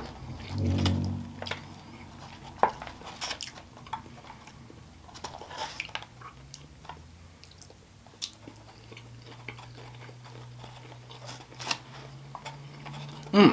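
Close-miked chewing and mouth sounds of someone eating, with a short low hummed "mm" about a second in. Scattered small clicks come from a fork picking through food in a foil takeout tray.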